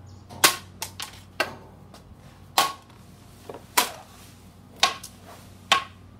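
A hollow plastic stick whacking a small box on a tiled floor: about seven sharp cracks, roughly a second apart, with a few lighter taps between them.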